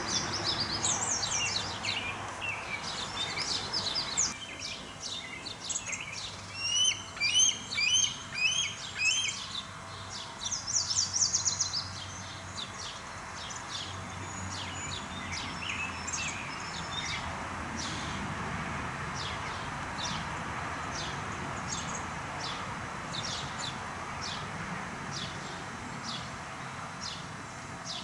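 Wild birds singing and chirping, several calls overlapping. Busiest in the first dozen seconds, with a run of repeated hooked notes and a fast high trill, then fewer, evenly spaced high chirps over a faint steady outdoor hiss.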